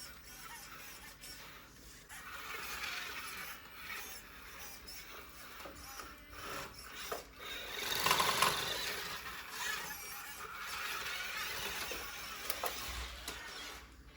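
Small toy RC car's electric motor and gearbox whining as it drives, swelling and fading unevenly, loudest about eight seconds in.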